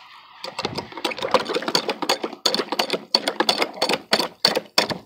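Cast-iron pitcher pump being worked by hand: the handle and its linkage clank quickly and sharply, about four or five knocks a second, starting about half a second in.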